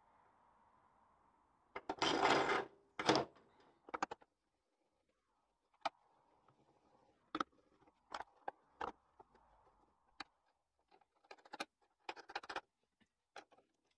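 Steel leaf-spring shackle plates, suspension pins and bushes being handled and fitted by hand: a burst of clattering about two seconds in, then scattered clicks and knocks, and another short run of clattering near the end.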